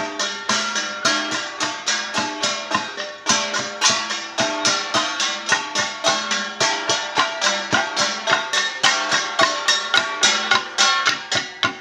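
Traditional Ifugao folk music: a quick, even run of struck pitched notes, about four a second, each ringing briefly and dying away.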